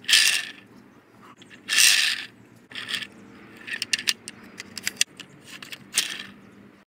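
Plastic toy car pushed by hand across rough concrete and over a rock: its wheels rattle and scrape in several short bursts, with clusters of clicks and knocks. The loudest bursts come at the start and about two seconds in.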